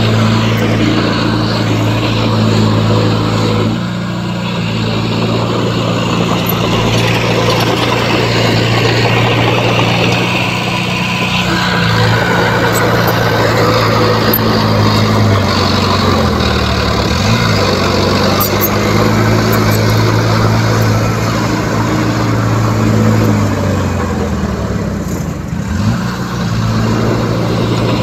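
Diesel engine of a small crawler bulldozer working under load as it pushes rock and soil, its engine speed dropping and recovering several times, with noise of the machine working the spoil.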